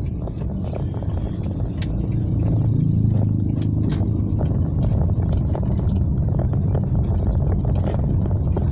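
Car cabin noise while driving in heavy rain: a steady low engine and road rumble that grows a little louder about two seconds in, with raindrops ticking sharply and irregularly on the roof and windshield.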